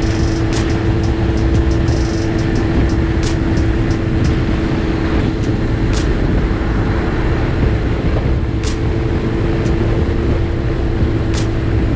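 Kawasaki Z125's small single-cylinder engine running at a steady cruising pitch, heard from the bike itself with heavy wind rush on the microphone. A few brief sharp clicks come through on top.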